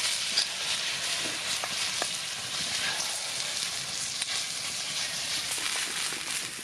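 Korean rice cake dish sizzling in a pan over a campfire, a steady hiss with scattered small crackles and pops.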